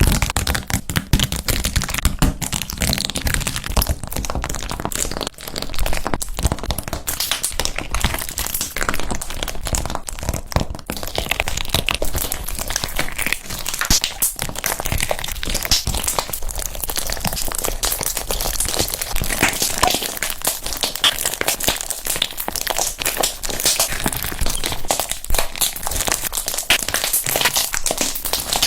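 Slime being squished and worked, giving a dense, continuous run of crackling, popping clicks.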